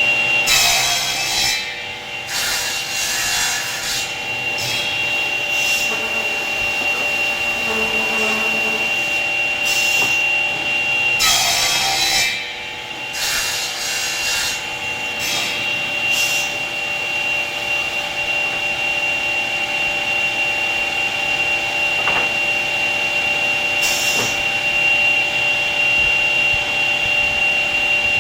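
Motor-driven combination woodworking machine running with a steady high whine, while wood is fed through it in a series of short, noisy cutting passes. The passes come close together in the first half, with one more near the end.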